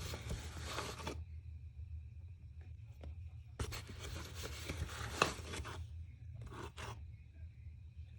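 Brief bursts of scraping and rustling from ingredients and utensils being handled, over a steady low hum: one at the start, a longer one around the middle, and a short one after it.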